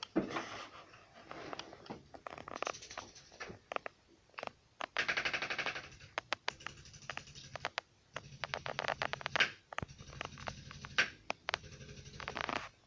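Bursts of rapid, evenly spaced mechanical tapping, three runs of a second or two each, with scattered sharp clicks between them, during a chiropractic back treatment.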